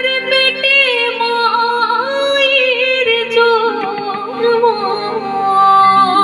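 A woman singing a Bengali song into a microphone, her voice wavering with ornamented held notes over steady, sustained instrumental accompaniment.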